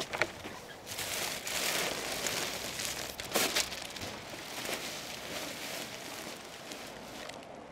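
Black plastic rubbish bag rustling and crinkling as it is pulled out of a wheelie bin and handled, with a louder crackle about three seconds in.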